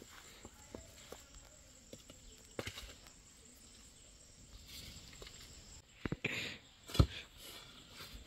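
Long iron bar being jabbed into packed mud and stones around a stuck car's front wheel to dig it free: scattered dull knocks and scrapes, with the heaviest thud near the end.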